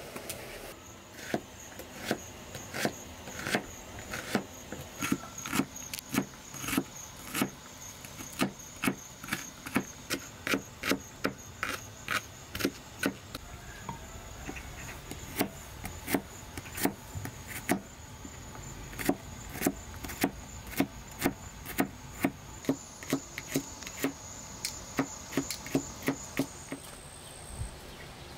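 Sharp knocks repeated at an even pace, about one to two a second, with a faint steady high-pitched tone behind them.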